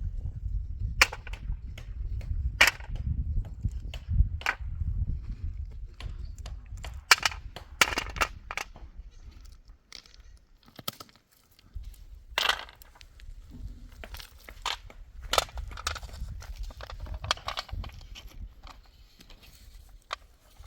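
A series of irregular sharp knocks and cracks, a few much louder than the rest, over a low rumble that drops out for a couple of seconds around the middle.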